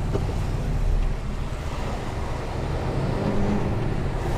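Mercedes Antos 1824 lorry's diesel engine running, a steady low rumble heard from inside the cab with an even hiss over it.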